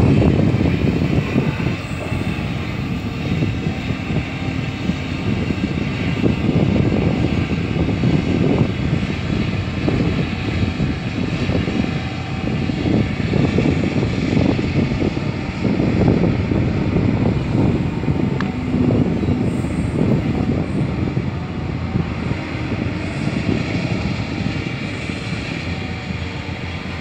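Doosan crawler excavator's diesel engine running steadily under load while the machine works its boom and bucket.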